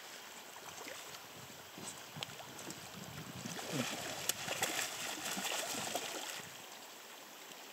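Hooked coho salmon splashing and thrashing at the surface beside a raft as it is netted, over the steady run of river water. The splashing starts about three seconds in and lasts about three seconds.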